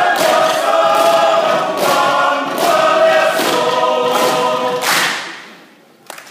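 A large seated group singing together in chorus, led by a standing leader, with a sharp beat about every second. The song ends about five seconds in, its last note dying away in the hall's echo.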